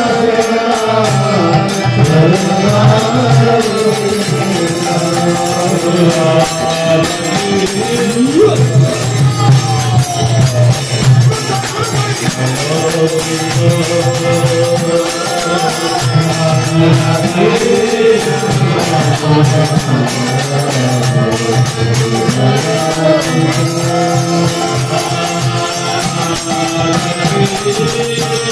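Devotional kirtan: a lead singer and group of devotees singing a Krishna chant, accompanied by the steady jingling strokes of small hand cymbals.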